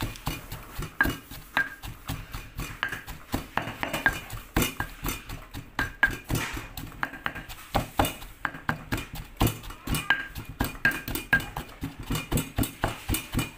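Stone pestle pounding fried mackerel flesh into roasted chili paste in a stone mortar. It makes a steady run of dull knocks, a few a second, some with a short clinking ring.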